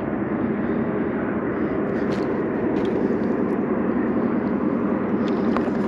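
Wind buffeting the microphone: a steady, even rumble, with a few faint clicks about two to three seconds in.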